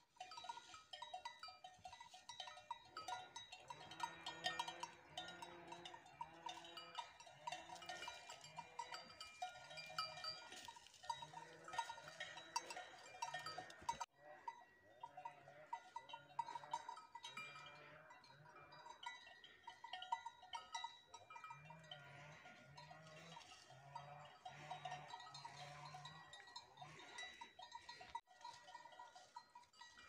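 Cowbells on walking cows clanking. Several bells at different pitches ring over one another, with two sudden brief breaks, about halfway through and near the end.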